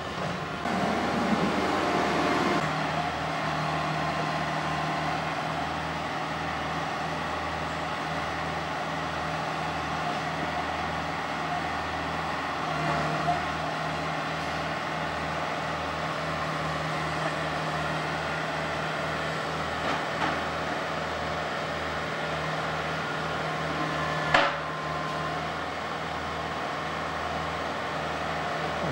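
Diesel engines of Atlas excavators running steadily, a constant low drone. A few faint knocks, then one sharp, louder knock about three-quarters of the way through.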